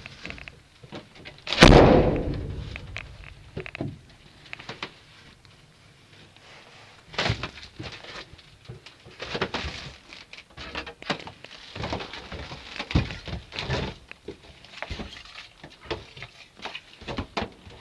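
A heavy thump a couple of seconds in, with a fading tail, then scattered knocks, taps and rustling.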